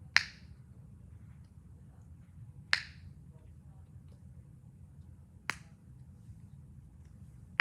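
Small pop-it style push-pop fidget being pressed one-handed, giving single sharp pops about every two and a half seconds, three times.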